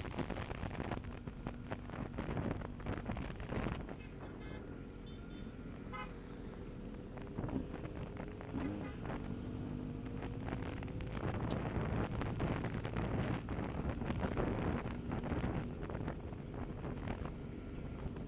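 Vehicle horns tooting over running engines, with wind buffeting the microphone.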